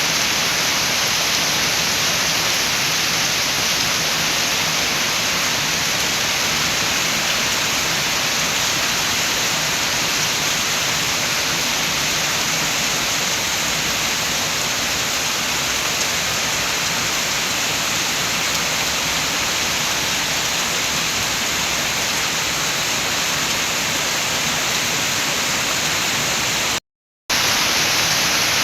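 Steady rain with wind, an even, dense hiss without distinct drops. It cuts out completely for a moment near the end, then resumes.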